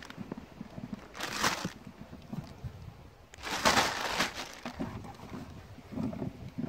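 Plastic bag crinkling as it is handled, in two main bursts about a second and a half and four seconds in, with softer rustling of hands rummaging in the bucket of soil in between.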